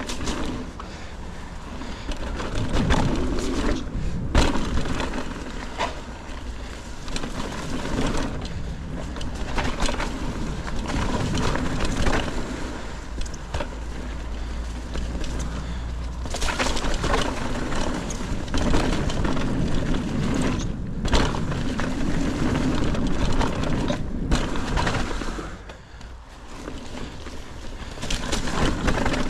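Mountain bike riding over a dirt trail: knobby tyres rolling and crunching on the ground, with repeated knocks and rattles from the bike over bumps.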